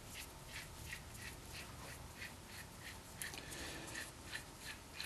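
Faint, even metallic scraping ticks, about three a second, as a threaded steel nut is spun along its threaded mandrel by hand.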